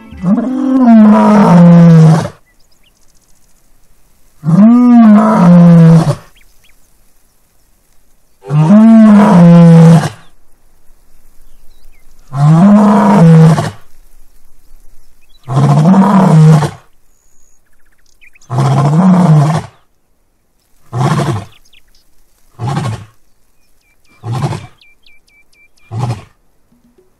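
A male lion's roaring bout. Six loud, long roars come a few seconds apart, each rising and then falling in pitch, and each a little shorter than the one before. They trail off into four short grunts, closer together, near the end.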